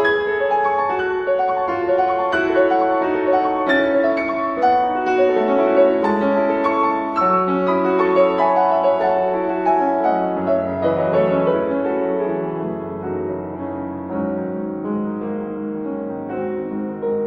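Piano music playing over the picture, quick notes with a calmer, softer passage in the second half.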